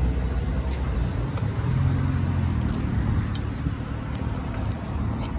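Road traffic with a car engine pulling away, its low hum fading over the last couple of seconds.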